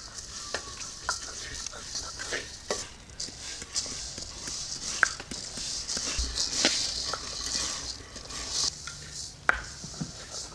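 Chana dal (split chickpeas) being roasted and stirred in a metal pan: a steady dry hiss of the grains sliding over the metal, with frequent scattered clicks and knocks of the stirrer against the pan.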